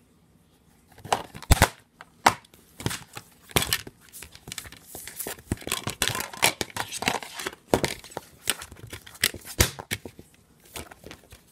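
A plastic DVD case being handled and opened: a run of sharp clicks and snaps mixed with crinkling plastic. It starts about a second in and dies away near the end.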